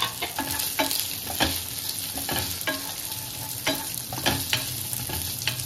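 Cubed onion and green capsicum sautéing with chopped ginger and garlic in hot oil in a pan, sizzling steadily while a wooden spatula stirs them, knocking and scraping against the pan about twice a second.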